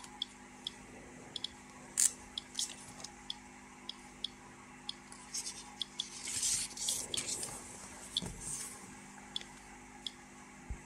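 Paper pages of an old instruction booklet rustling as they are handled and turned, loudest about two seconds in and again from about six to nine seconds in. Short clicks run underneath at an irregular, random rate, like a Geiger-counter dosimeter counting.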